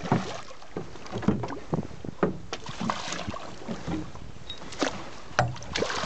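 Sea water splashing and sloshing at the side of a small boat as a hooked fish thrashes at the surface, with several scattered sharp knocks.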